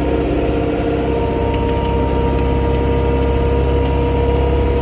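Vehicle engine running steadily at an even, idle-like speed, a constant drone with steady tones.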